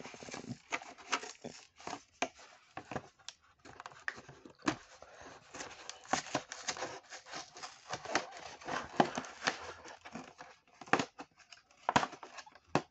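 Plastic blister pack of a Hot Wheels card being worked open by hand: irregular crinkling, crackling and tearing of the plastic bubble and cardboard backing.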